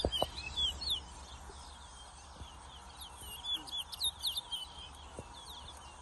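Caged towa-towa finches singing in a song race: bursts of quick, high, chirping notes in the first second and again from about three to five seconds in.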